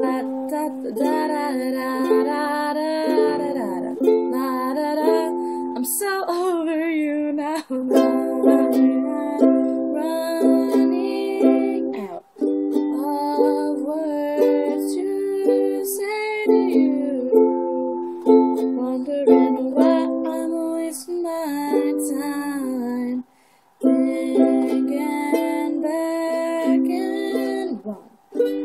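A ukulele strummed in chords with a woman singing along. The playing breaks off briefly a few times and starts again.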